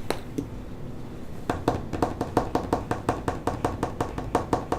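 A fast, even run of taps or knocks, about six a second, starting about a second and a half in, after a couple of single clicks.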